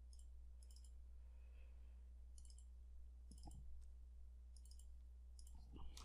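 Faint computer mouse clicks, several of them in quick pairs, over a low steady hum.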